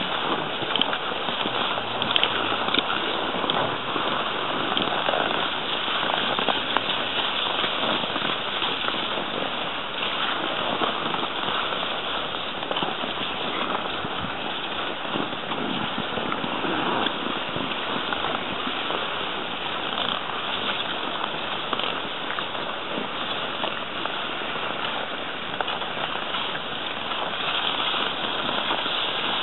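Skis and pulk sledges sliding over snow: a steady, close crackling and scraping hiss made of many small crunches.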